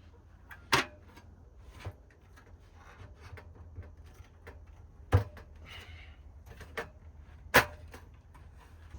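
Objects being handled: light clicks and rustles with three sharp wooden-sounding knocks, about a second in, five seconds in and near the end, over a low steady hum.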